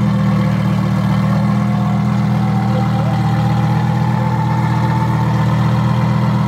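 Car engine idling steadily, a loud, even low hum, with a faint whine slowly rising in pitch partway through.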